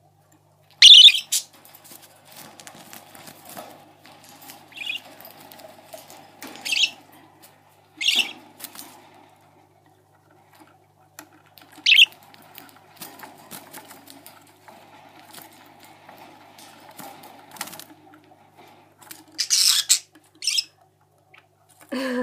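Baby budgerigars giving short, sharp, high-pitched squawks and chirps every few seconds, with a few calls close together near the end, over faint fluttering and scuffling of wings.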